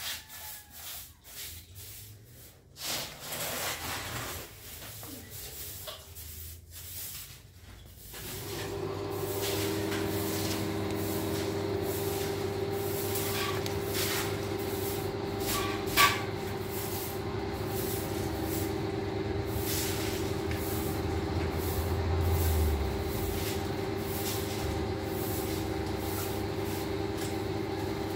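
Soft broom sweeping a tiled floor in short scratchy strokes. About eight seconds in, a steady mechanical hum starts up and runs on underneath, and there is one sharp knock about halfway through.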